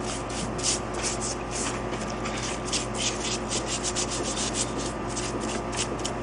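A brush scrubbing loosened E-coating off a steel hood hinge after a rust-treatment soak, in quick repeated scratchy strokes, several a second.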